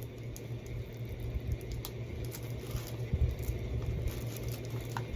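Faint clicks and rustles of a plastic Blu-ray case being handled, scattered over a steady low hum.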